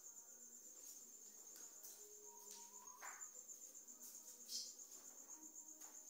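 Crickets trilling faintly and steadily, with a few soft rustles of bedding being spread.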